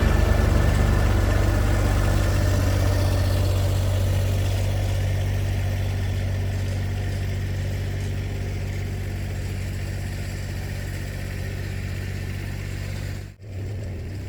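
Massey Ferguson GC2610 compact tractor's three-cylinder diesel engine running at a steady, even pitch, slowly fading, with a sudden brief drop-out near the end.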